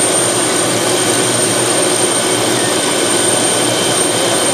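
Small turbine helicopter running on the ground with its rotor turning: a steady high turbine whine over a loud, even rush of engine and rotor noise.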